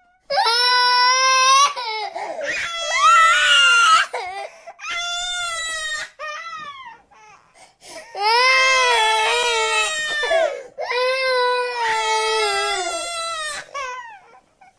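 A cartoon character's crying sound effect: a run of high, wavering wails, about five long sobbing cries with short breaks between them.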